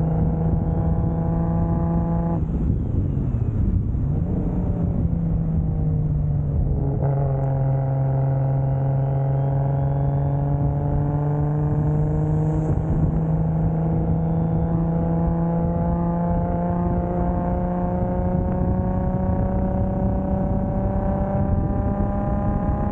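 Single-turbo 2JZ straight-six in a 1995 Toyota Soarer pulling steadily, then dropping revs through a gear change about two and a half seconds in. After the shift it settles at a lower note that climbs slowly and evenly as the car gathers speed for the rest of the stretch.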